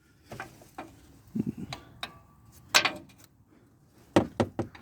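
Hand ratchet tightening a belt tensioner's mounting bolts: scattered metallic clicks and knocks at an uneven pace, one louder knock about three seconds in and a quick cluster of clicks near the end.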